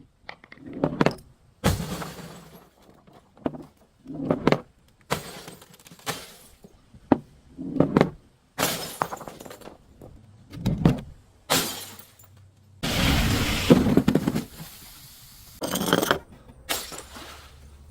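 Glass bottles being crushed and shattering: a series of separate sudden crunches and breaks, with one longer crunch lasting about two seconds just past the middle.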